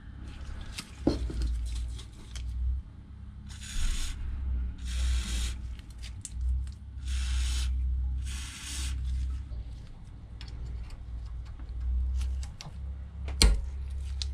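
GT85 PTFE aerosol lubricant sprayed through its straw onto a bicycle pedal in four short hisses, each under a second. A sharp knock near the end.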